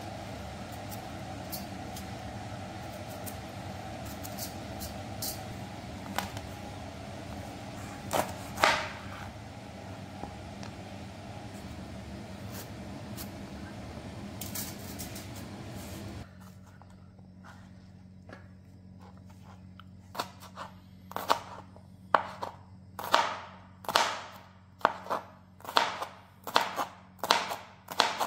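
Kitchen knife slicing bitter melon on a cutting board: sharp, even chops about two a second, starting about two-thirds of the way in. Before that, a steady hiss with a few scattered scrapes and clicks.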